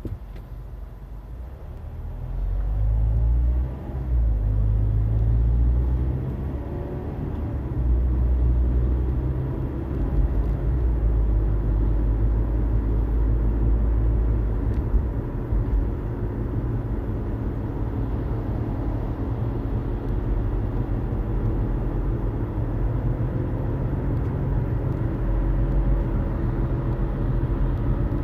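Mazda CX-5 cabin noise while accelerating from a stop: engine and road sound with a low thrumming drone underneath, whose cause the owner has not found.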